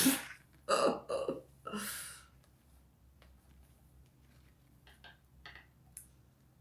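A woman's short wordless vocal sounds in the first two seconds: a puzzled grunt and a breathy exhale. Then faint small clicks from handling a plastic earphone earpiece.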